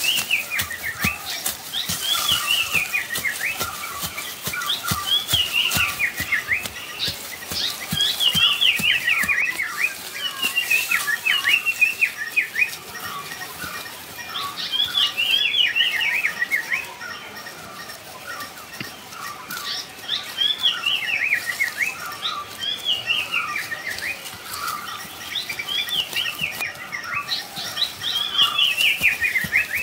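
A bird singing a repeated phrase of quick notes falling in pitch, every two to four seconds, over soft scratching and patter of hands digging in dry soil.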